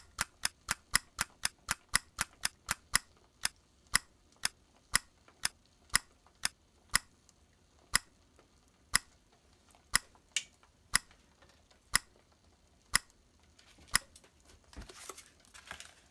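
Clock-like ticking sound effect: sharp, evenly spaced ticks that start at about four a second, slow to two a second, then to one a second. A faint hiss comes in near the end.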